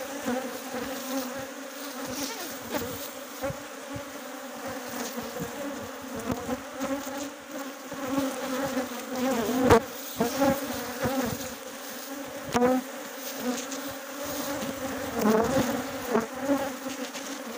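Steady buzzing hum of a very populous honeybee colony, with masses of bees flying and clustered over the outside of the hive. A few sharp bumps break through, the loudest about ten seconds in.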